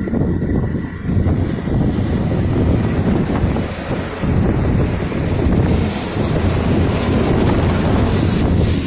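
Loud, steady rumbling noise of a moving vehicle, with wind buffeting the microphone.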